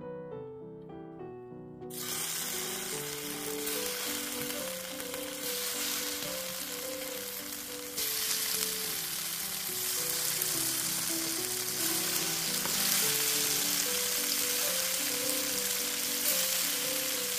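Slices of tofu frying in hot cooking oil in a flat nonstick pan: a steady sizzle that starts suddenly about two seconds in and grows louder about eight seconds in. Background music plays throughout.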